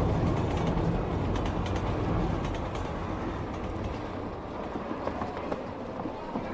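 Subway train running: a steady low rumble with rattling clicks and clatter, easing down after the first few seconds.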